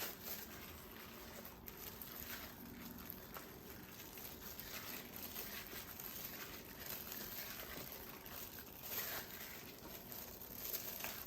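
Faint, scattered crinkling and light handling noises over quiet room tone.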